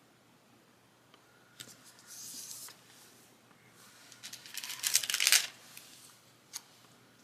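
Paper and sticker sheets being handled: a short rustle about two seconds in, then a louder burst of crinkling and tearing-like rustling around five seconds in, and a single click near the end.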